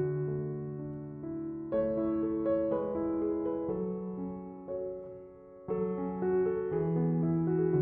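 Background piano music playing slow-changing chords; it fades briefly about five seconds in, then a new phrase begins.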